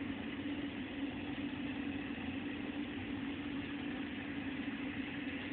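Steady hum of running machinery: an even drone with a constant low tone and no changes or distinct events.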